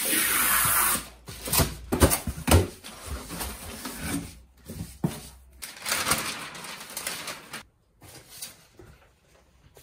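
A blade slitting the packing tape along a large flat-pack cardboard carton, a loud hiss of about a second. Then the cardboard flaps and packing are pulled open and handled, with a run of sharp knocks, thumps and rustles.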